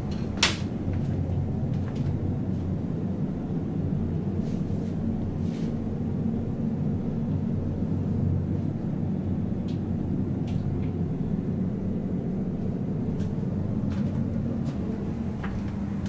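Steady low rumble and hum inside a moving LHB rail coach. A single sharp door-like clack comes about half a second in, and faint clicks and rattles are scattered through the rest.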